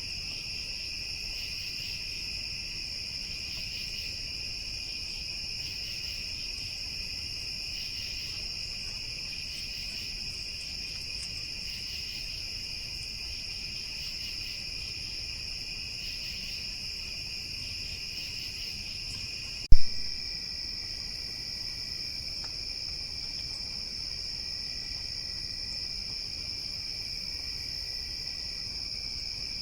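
Steady chorus of crickets and other night insects, a continuous high trilling. A single sharp click comes about two-thirds of the way through, after which the insect chorus sounds slightly different.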